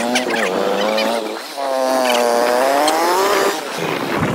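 Motorcycle engine running under throttle while riding. Its pitch sags about a second and a half in, then climbs steadily for about two seconds.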